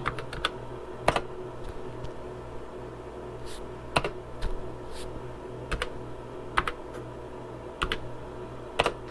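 Keys being typed on a TRS-80 Model II computer keyboard: about a dozen separate clicks at an uneven pace, over a steady low hum.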